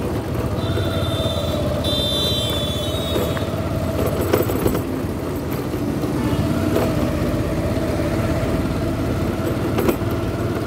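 Motorcycle running at low speed on a rough road: steady engine and road noise with a few short knocks. A high tone sounds twice in the first few seconds.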